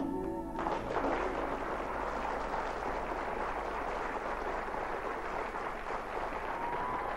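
Piano music stops about half a second in and gives way to steady crowd noise, a dense even hiss of many hands or voices, with a faint high tone near the end.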